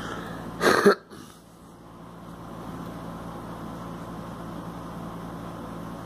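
A woman coughs once, a short loud cough less than a second in, just after drawing on a cigarette. A steady low hum runs underneath.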